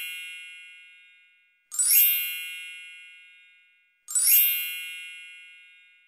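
A bright, bell-like chime rung three times about two seconds apart, each ring fading out over about a second and a half; the first is already dying away at the start.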